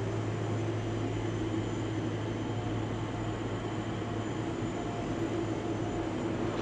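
Boeing 747 freighter's jet engines at taxi power, heard from a distance as a steady rush of noise with a constant low hum.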